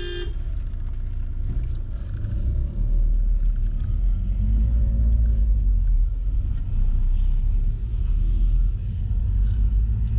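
Steady low rumble of a Tata Safari Storme's diesel engine and road noise heard inside the cabin while driving slowly, with the engine note rising a little about four seconds in. A car horn finishes sounding at the very start.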